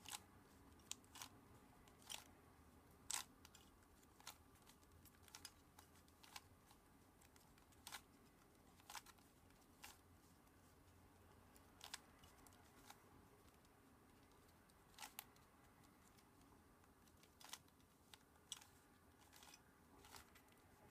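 Plastic twisty-puzzle cube being scrambled by hand: short, sharp clicks and clacks as its layers are turned, irregular, roughly one a second, over near silence.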